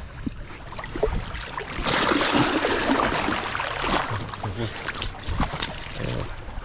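Splashing in shallow river water as a released trout is let go and kicks away, loudest for about two seconds near the middle, over the steady flow of the river.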